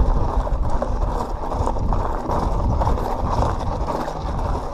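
A 2017 Pivot Switchblade 27.5+ mountain bike ridden over a dirt trail, picked up by an on-bike action camera: a steady rumble of the plus-size tyres on the ground with constant small rattles and clicks from the chain and frame.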